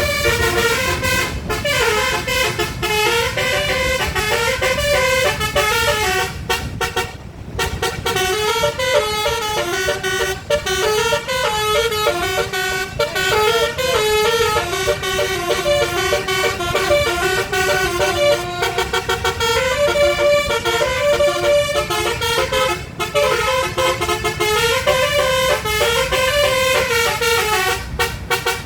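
Bus telolet horn, a multi-tone basuri-type horn, playing a long melody of notes that step up and down, with a brief break about seven seconds in. A low steady rumble runs underneath.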